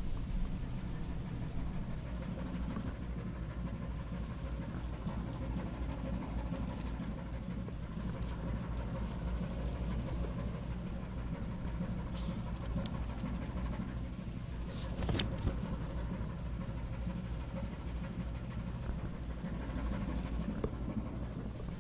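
Ship's engine running steadily at sea, a low even hum.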